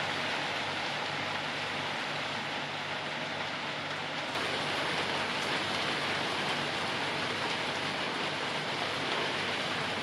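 Steady rain falling on a wet wooden deck and garden plants: an even hiss of drops that neither builds nor lets up.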